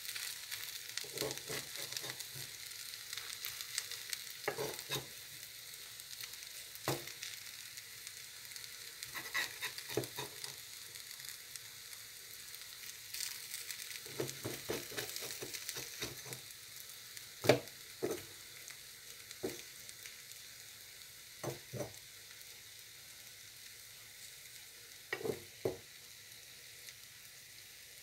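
Potato strips and egg sizzling in a frying pan, a steady hiss with a spoon knocking and scraping against the pan every few seconds; the sharpest knocks come about two-thirds of the way through.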